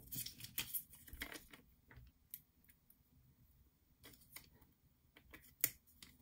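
Faint clicks and rustles of card pieces and a sheet of adhesive dots being handled on a desk, with a quiet stretch in the middle and one sharper click near the end.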